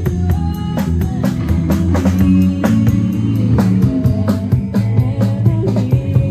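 A live rock band playing classic rock: electric guitars and bass over a steady drumbeat from a drum kit, with a singer's voice over them.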